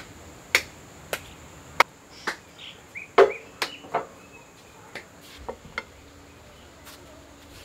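A run of sharp taps and knocks, about one every half second at first, then the loudest knock a little after three seconds and a few lighter ones: footsteps on a tiled floor, then a serving plate and dishes set down on a wooden table. Faint bird chirps between the knocks.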